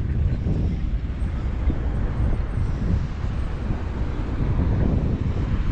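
Steady low rumble of wind buffeting the microphone, mixed with city traffic noise, heard from a bicycle being ridden along downtown streets.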